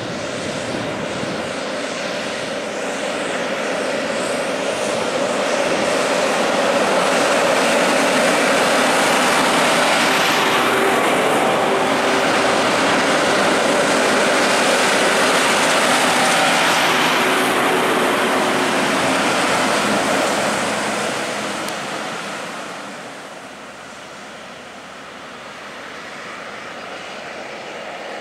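Two Volvo FH16 600 road trains driving past, their 16-litre straight-six diesel engines and tyres growing louder as they approach. The sound stays loud and steady while they go by, then fades about 21 seconds in as they pull away.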